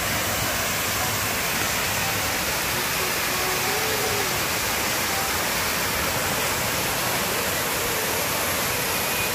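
Waterfall pouring down over rocks: a steady, even rush of falling water.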